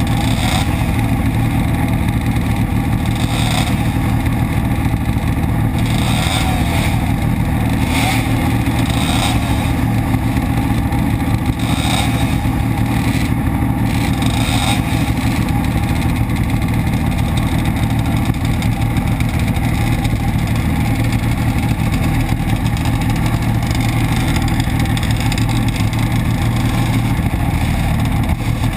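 Suzuki RG500's two-stroke square-four engine idling steadily, heard up close, with other two-stroke race bikes running around it.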